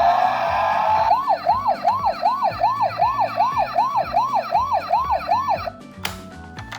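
Toy ambulance's electronic siren: a rising tone, then a fast yelp that rises and falls about two to three times a second. It cuts off suddenly near the end, and a click follows.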